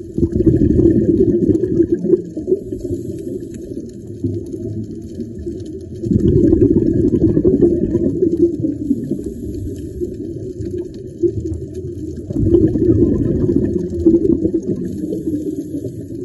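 Scuba divers' exhaled bubbles from their regulators, heard underwater as a low bubbling rumble. It swells three times, about every six seconds, with each breath out, and stays fainter between breaths.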